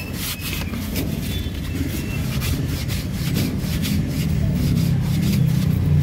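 Fine 1000-grit sandpaper rubbed by hand over a steering rack-and-pinion's pinion shaft in repeated short strokes, smoothing out light scratches on the shaft, with a steady low rumble behind.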